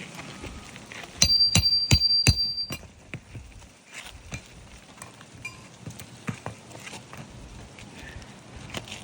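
Hammer striking nails during a roof shingle repair: about five quick, ringing metallic blows a little over a second in, then fainter scattered taps.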